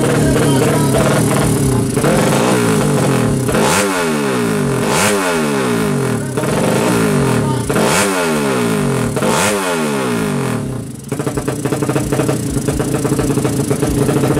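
Single-cylinder 200 cc SOHC drag-bike engine idling high and rough at the start line, blipped four times: each rev climbs sharply and falls back within about a second. About two-thirds through the revs sag for a moment, then the engine settles back to a steady idle.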